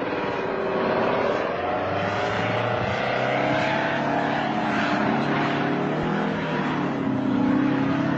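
Aircraft engines and rotors running: a continuous drone with a whine that slowly slides in pitch.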